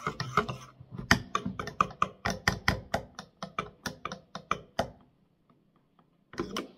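A utensil clinking against the sides of a stainless steel pot as pancake batter is beaten by hand: quick taps, about four or five a second, that stop about five seconds in.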